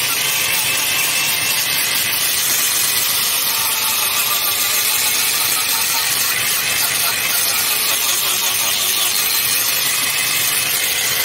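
Electric angle grinder fitted with a sanding disc, running steadily while it sands and shapes a carved wooden piece.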